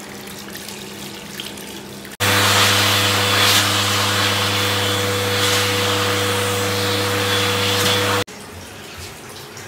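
Electric hand dryer in a train washroom switching on abruptly and blowing steadily for about six seconds before cutting off, a rush of air over a steady motor hum. Before and after it there is a quieter steady background rumble.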